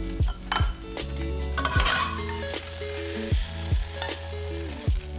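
Background music with a slow beat: held chords over deep kick-drum hits that drop in pitch, with a steady hiss underneath and a brief scraping noise about two seconds in.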